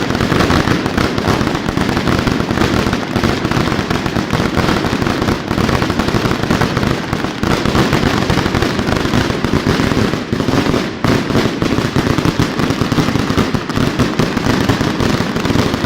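Fireworks display firing a dense, unbroken barrage: rapid bangs and crackling packed so closely that they merge into one continuous din.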